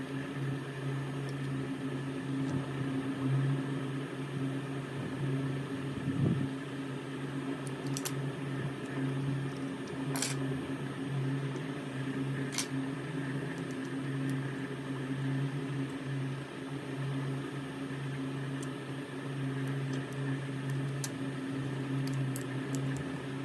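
Steady machine hum, as of a small motor or fan running, with a few short light clicks.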